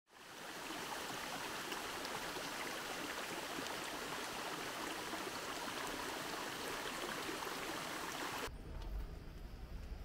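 Steady rushing of running water. It cuts off suddenly about eight and a half seconds in, and a low rumble takes over.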